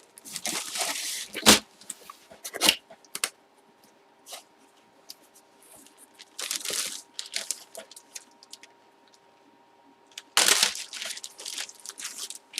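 Packaging around a memorabilia jersey being torn open and handled: irregular bursts of tearing and crinkling with a few sharp snaps, and quiet pauses between.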